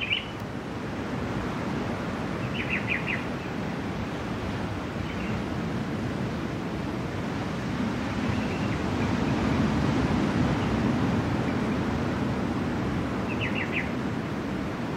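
Ocean surf washing onto the shore, a steady rush that swells a little around the middle. A bird chirps a quick few notes twice, early and near the end.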